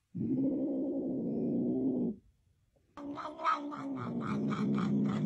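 A cat's low, drawn-out growl lasting about two seconds. Then, about three seconds in, a cat growling steadily while it crunches dry kibble, about four or five crunches a second.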